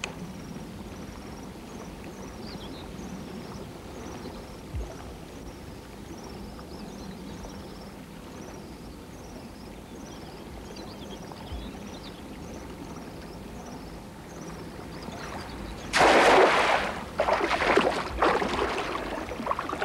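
A small bird chirps over and over against the steady hush of a river. About sixteen seconds in, a thrown cast net lands on the water with a loud splash, followed by the uneven sloshing of legs wading through shallow water.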